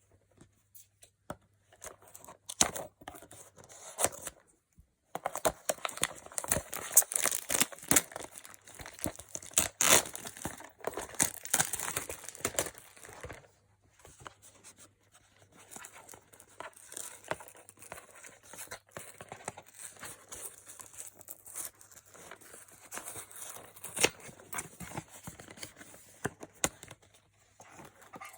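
Packaging of a Funko mystery box being torn open and crinkled by hand. A few light handling noises lead into a long stretch of loud tearing and rustling, then quieter crinkling and handling.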